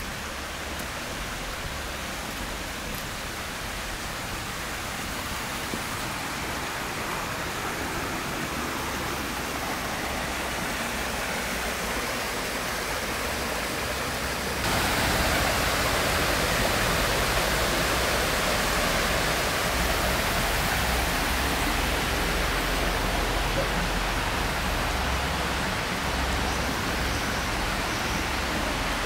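Creek water rushing over rocks in small cascades, a steady hiss that turns abruptly louder and brighter about halfway through.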